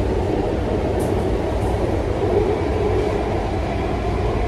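Metro train running, heard from inside the passenger carriage: a steady low rumble.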